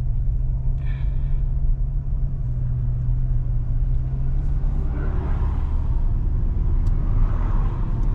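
C8 Corvette cruising at low speed on a back road: a steady low engine and exhaust drone under road noise, which swells briefly twice.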